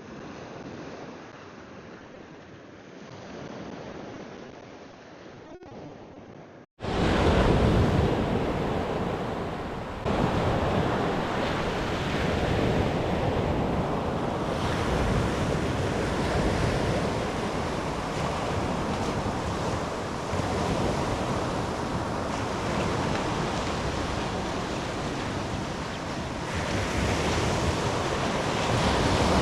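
Ocean surf washing on the beach with wind buffeting the microphone. About seven seconds in the sound cuts out for an instant and comes back much louder and fuller.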